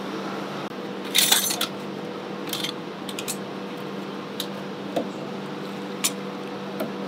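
Metal ladle, bowl and steel trays clinking and clattering at a street-food skewer stall: a loud clatter about a second in, then half a dozen single sharp clinks. A steady low hum runs underneath.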